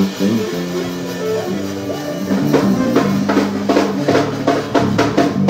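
Live zydeco band playing: held accordion notes over drum kit, and from about two seconds in a steady beat of sharp strokes at roughly four a second.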